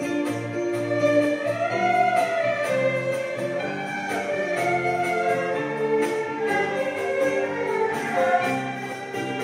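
An erhu ensemble bowing a slow, lyrical melody together, with the sliding glides between notes typical of the erhu, over an accompaniment with a steady beat.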